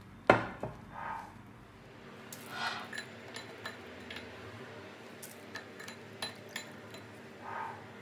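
Spatula and utensils knocking and clinking against a glass baking dish while cream is spread. A sharp knock just after the start is the loudest sound, followed by scattered lighter clicks and brief soft scraping.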